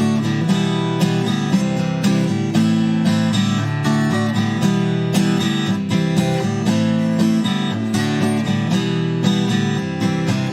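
Acoustic guitar strumming the chords of a song's introduction, with a steady rhythm of strokes.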